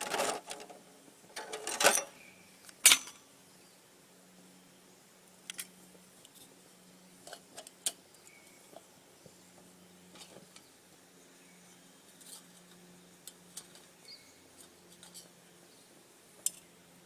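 Metal camp cookware and a stove windshield clattering as they are set in place: a few sharp clanks in the first three seconds, then only scattered faint clicks and taps.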